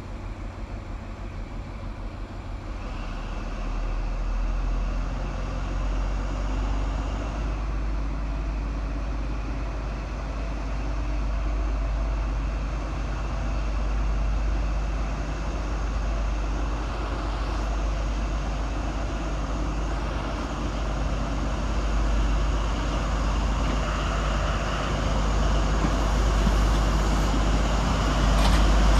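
Diesel engines of a Class 43 HST power car working under power as the train pulls away and approaches, with a deep steady hum growing steadily louder until it passes close by.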